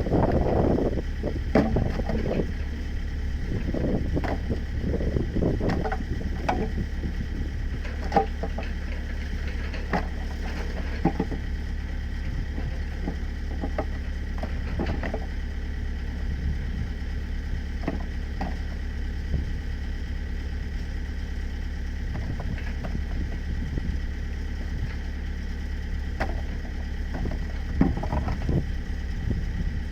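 Mini excavator engine running steadily, with scattered knocks and clatter of demolition debris being broken up and sorted.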